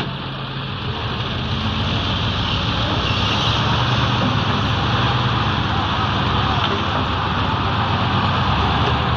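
Heavy diesel engine of a loaded UD dump truck running under load as it pulls through soft sand, growing louder over the first couple of seconds and then holding steady.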